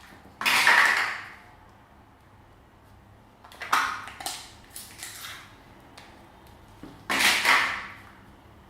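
Hands squeezing and mixing slime, in separate bursts: one about half a second in, several in quick succession around the middle, and one near the end.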